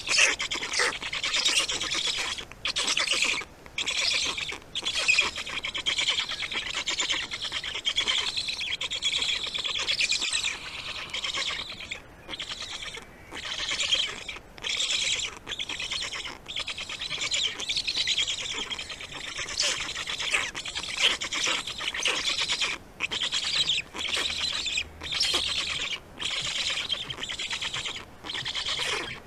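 Black stork chicks begging at the nest: a dense chorus of high-pitched calls in runs, broken by short pauses about every second.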